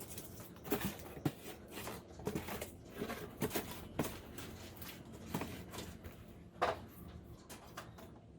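Irregular light knocks, taps and clicks, about a dozen over several seconds, the loudest a sharper knock about six and a half seconds in: handling noise from objects being moved and worked by hand.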